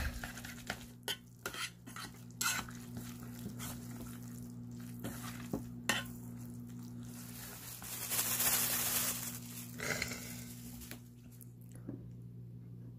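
Utensils clicking and scraping against dishes as food is handled, a scattering of sharp clicks over a steady low hum, with a stretch of hissing about eight seconds in.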